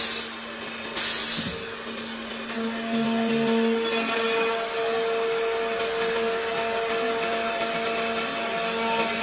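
CNC milling spindle running with a steady whine while it mills the edge of a glued hardwood panel. Two short, loud hisses come near the start.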